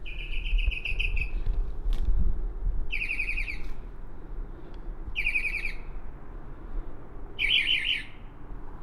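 Northern mockingbird singing at night, a male's territorial song: four short trilled phrases of rapid repeated high notes, each under about a second and spaced about two seconds apart. A low rumble runs beneath.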